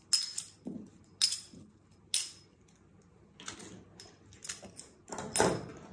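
Sharp metallic clicks and clinks from metal sewing tools being handled on a cutting table, about one a second, with light fabric and paper rustling between; the loudest click comes near the end.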